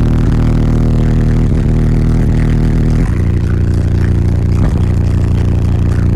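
Car audio system playing bass-heavy music at very high volume through four Deaf Bonce Apocalypse 3015 15-inch subwoofers in a fourth-order box tuned to about 45 Hz; deep held bass notes that shift about three seconds in.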